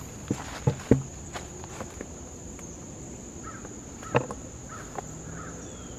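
Footsteps crunching through leaf litter and twigs on a forest floor, with several sharp snaps in the first second and another loud one about four seconds in. Under them runs a steady high insect drone.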